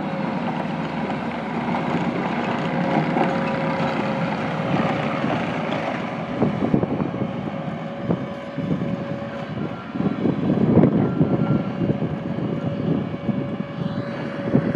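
Bobcat T250 compact track loader's diesel engine running, with a steady whine over it, growing louder with rattling twice as the machine works.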